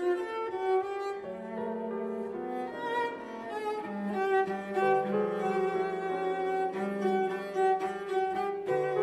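Avant-garde 20th-century duo for cello and piano: the cello holds long bowed notes with vibrato, and the piano strikes chords now and then beneath it.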